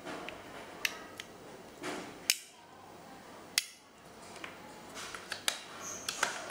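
Small handling clicks and taps from a smartwatch and its magnetic USB charging cable, the two sharpest about two and a quarter and three and a half seconds in.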